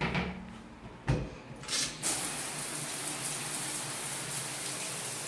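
A couple of short knocks, then running water starts about two seconds in and pours steadily.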